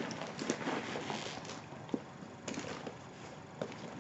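A Coach Rogue leather handbag being handled: rustling with scattered soft taps and clicks as it is moved about.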